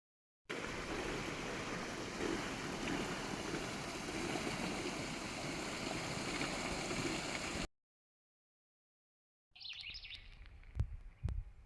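Steady rush of flowing water, cutting off abruptly. After a short silence, faint bird chirps and a couple of low thumps follow near the end.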